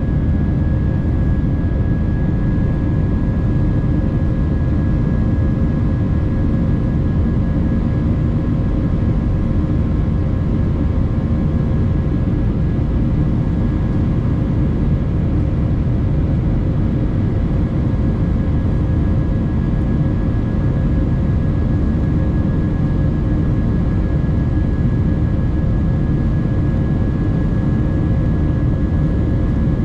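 Steady cabin roar of an Airbus A319 in its climb after takeoff, heard inside the cabin from a window seat: a deep, even rumble of engine and airflow with a few faint steady engine tones over it.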